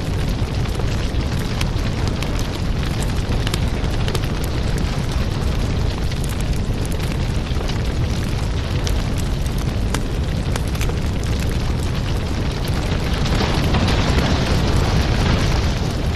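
Firewood burning: a steady low rumble of flames with frequent sharp crackles and pops from the logs, swelling into a louder, hissier flare about thirteen seconds in.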